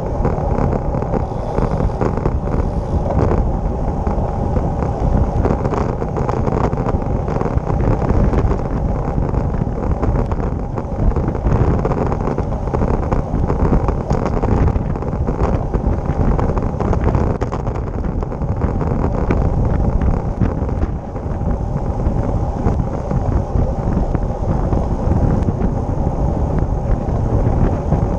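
Wind rushing over the microphone of a handlebar-mounted camera on a moving road bike: a loud, steady noise with tyre noise from the asphalt underneath.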